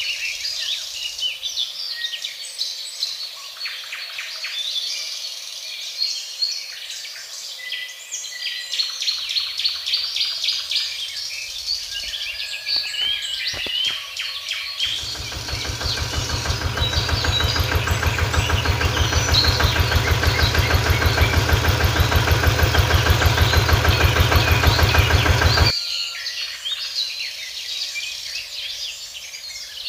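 A small electric motor whirs with a fast, even pulsing, growing louder for a few seconds, holding steady, then cutting off suddenly about two-thirds of the way in. Birds chirp throughout.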